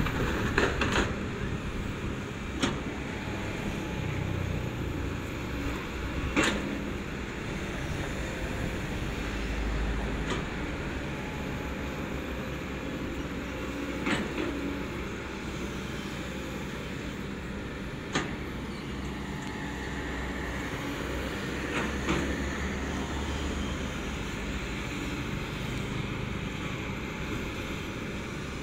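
Diesel engine of a Kobelco long-reach excavator running steadily under load while it digs, with a sharp knock every few seconds.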